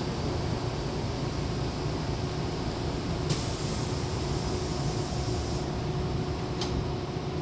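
Hankyu train's doors closing: a sudden sharp air hiss about three seconds in that lasts about two seconds, then a short click as the doors shut, over the steady low hum of the stopped train.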